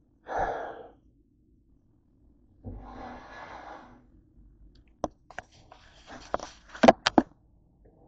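Handling sounds: two short rushes of noise, then a run of sharp clicks and knocks, loudest near the end, as plastic bottles are moved about and set down on a kitchen counter.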